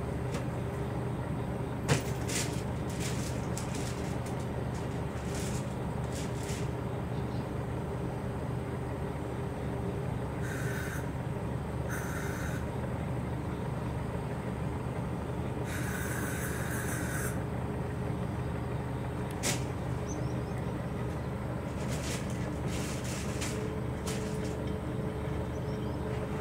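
A steady low mechanical hum, like distant vehicles, with three short hisses around the middle and two sharp clicks, one near the start and one past the middle.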